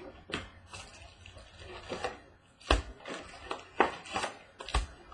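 Trading card box and foil packs being opened and handled: irregular sharp snaps and crinkles of wrappers and cardboard, a few loud ones spaced about a second apart.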